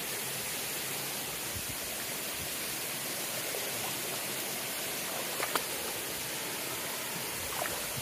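Steady rush of water from a waterfall and the stream below it, an even hiss with no breaks. A couple of faint clicks come through about five and a half seconds in and again near the end.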